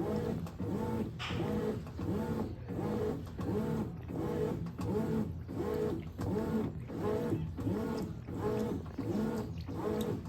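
Brastemp 17 kg washing machine agitating a tightly packed load. Its motor and agitator swing back and forth in a steady rhythm, about one stroke every 0.7 seconds.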